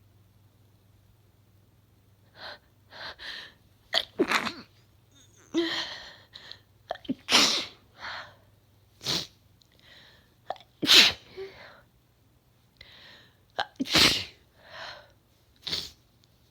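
A woman sneezing in a fit. A few breathy, catching inhales lead into several loud, sharp sneezes, with quick gasping breaths between them.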